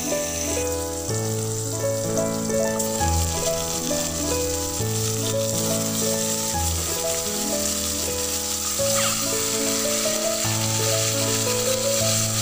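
Background music with a melody and bass line, over the sizzle of an onion-tomato masala frying in oil in an aluminium kadai. The sizzle grows a little stronger in the second half.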